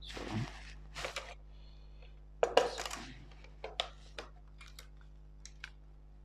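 Clear plastic rolling ruler with a protractor being laid on drawing paper and moved across the sheet. It starts with a brushing rustle, then come a couple of light knocks, a louder clatter about two and a half seconds in, and a run of small sharp ticks.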